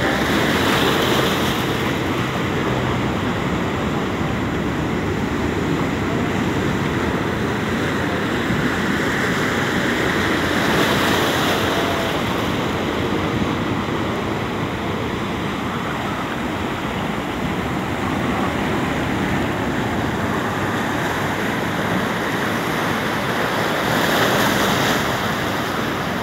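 Ocean surf breaking and washing over the boulders of a rock jetty: a steady rush of water that swells three times as waves crash, about a second in, in the middle, and near the end.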